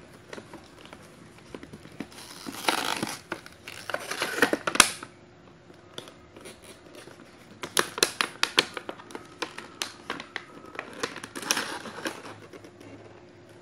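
Packaging of a small action-camera box being opened by hand: crinkling and rustling, then many sharp clicks and taps in short runs.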